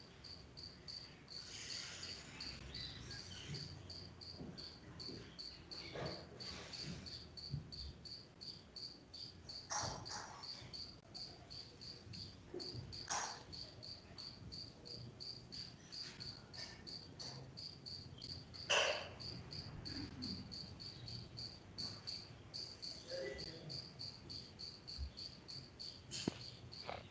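Faint cricket chirping, an even, fast run of high chirps, with a few soft knocks and rustles, the loudest about two-thirds of the way through.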